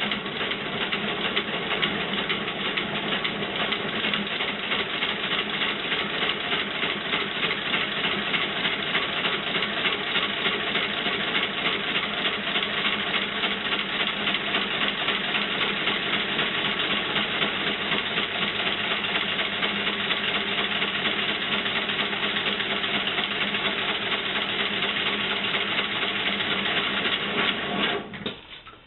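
Home-built four-cylinder compressed-air engine running fast, its cylinders exhausting air in a rapid, steady hissing chuff. It cuts off about a second before the end.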